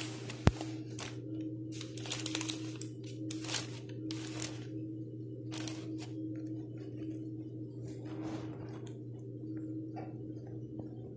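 Intermittent rustling and crinkling handling noise over a steady low hum, with a sharp click about half a second in.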